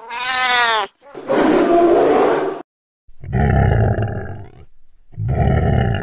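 A run of animal call sound effects: a short pitched cry falling in pitch, then a rough breathy call, then two low roars about two seconds apart.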